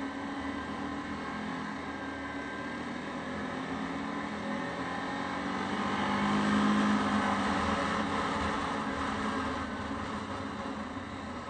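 Yamaha Grizzly 550 ATV's single-cylinder four-stroke engine running under way, with wind and road noise. The engine gets louder and a little higher about halfway through as it pulls harder, then eases back.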